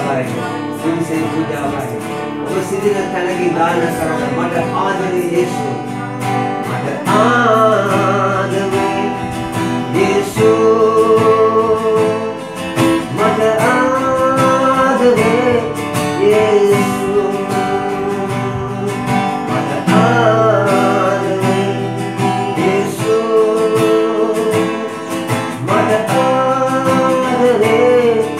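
A man singing while strumming a Suzuki acoustic guitar, his voice in long held phrases over steady strummed chords.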